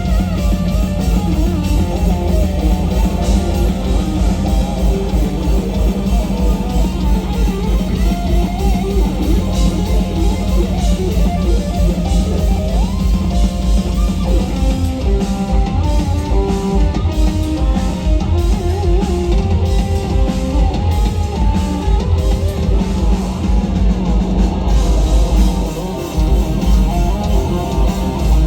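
Live instrumental metal: a lead electric guitar plays a melody over fast drums and bass, with a rising bend about thirteen seconds in.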